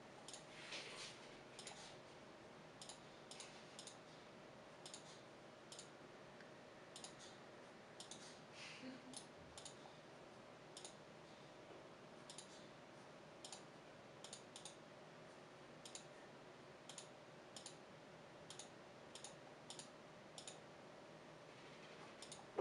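Faint, sharp, irregular clicks, sometimes several a second, from working the computer's controls to adjust the laser pointer's servo sliders, over a faint steady hum.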